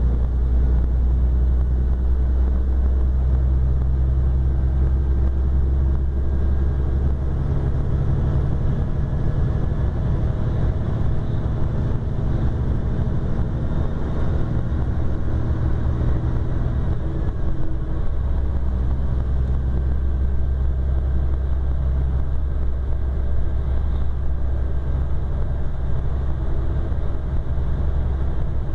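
Mercedes-Benz O-500RS coach's diesel engine running under way, heard from inside the bus: a steady low drone whose note shifts a few times as engine speed changes.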